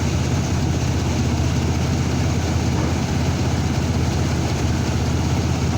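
2002 Chevrolet S10 pickup's six-cylinder engine idling steadily with a low, even hum, while it throws a P0300 random misfire code.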